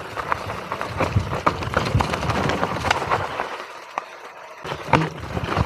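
Mountain bike riding fast down a rough dirt trail: tyres rumbling over dirt and stones, with many sharp rattles and knocks from the bike over bumps. The rumble eases briefly about four seconds in.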